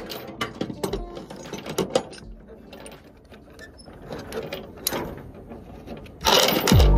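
Steel transport chain clinking and clanking against its hooks and a chain binder as it is drawn tight over a load of steel plates: many quick, irregular metal clicks. A sudden louder rush of sound comes in about six seconds in.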